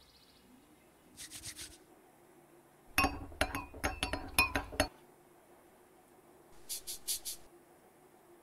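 Cartoon sound effect of a spoon stirring in a drinking glass: a quick run of ringing glass clinks about three seconds in, lasting about two seconds. A brief high rustle comes shortly before it and another shortly after.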